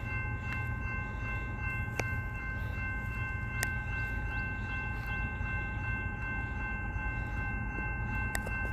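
Railroad grade crossing warning bell ringing steadily as the crossing activates for an approaching train, over a steady low rumble, with a few faint clicks.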